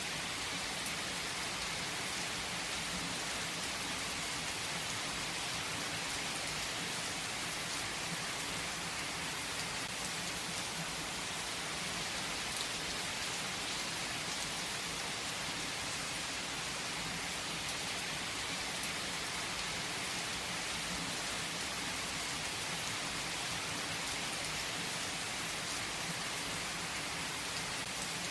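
Heavy rain falling on a tree's leaves, a steady dense hiss with scattered sharper drop ticks.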